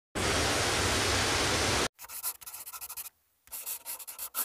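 Rubbing, scratchy noise: an even rush for nearly two seconds, then short scratchy stretches broken off by abrupt cuts.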